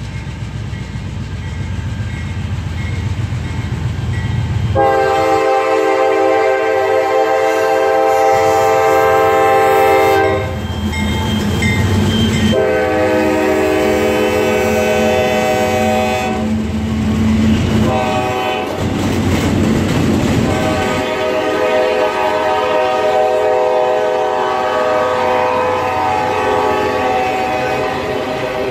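Norfolk Southern freight train passing close by: a low diesel rumble as the locomotives approach, then the lead locomotive's air horn sounds a series of long blasts, beginning about five seconds in. Under and between the blasts the wheels of the passing boxcars clatter over the rail joints.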